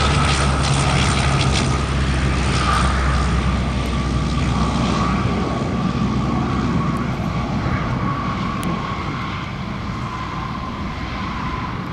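Convair 580's twin Allison turboprop engines running as the aircraft touches down and rolls out along the runway, with a steady whine and a low drone. The drone drops away after two or three seconds and the whole sound slowly grows quieter.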